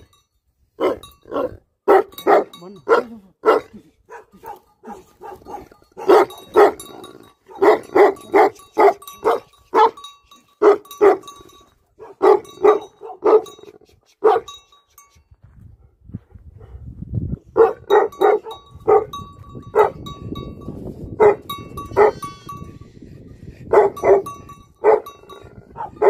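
Large livestock guardian dog barking in long runs of deep barks, about two a second, with a pause of a few seconds past the middle. A low rumble sits under the later barks.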